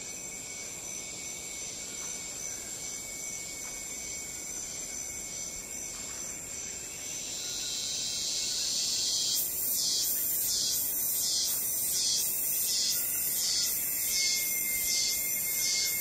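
Insect chorus of steady high-pitched trills, typical of crickets. From about halfway through, a louder, evenly pulsing high-pitched insect call joins in at about three pulses every two seconds.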